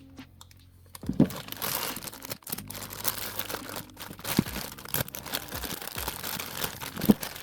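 Plastic wrapping crinkling and rustling as figure parts are pulled out and unwrapped, with a few light knocks of the parts on the table. It starts about a second in.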